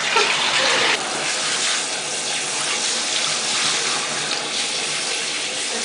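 Water running steadily from a tap into a bathtub, a little louder for the first second.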